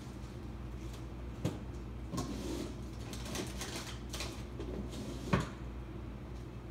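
Rummaging in an open refrigerator: containers knocking and clattering against the shelves, with rustling in between. Sharper knocks come about a second and a half in and again about five seconds in.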